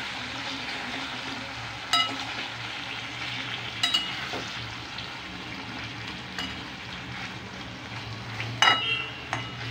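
Masala-coated potato slices sizzling in oil in a metal kadhai as a metal spatula stirs and turns them, scraping the pan and striking its side in several sharp, briefly ringing clinks, the loudest near the end.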